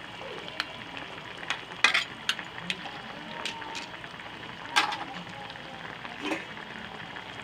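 Coconut milk bubbling and sizzling in a pan with crabs and squash: a steady hiss with scattered sharp pops, the loudest about two and five seconds in.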